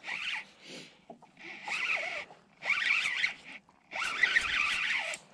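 Spinning reel being cranked to reel in a hooked fish: a whirring, zipper-like buzz in three spurts of about a second each.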